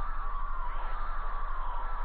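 Electronic emergency-alert alarm tone held steadily at a mid pitch, wavering slightly and fluttering rapidly, over a low steady hum.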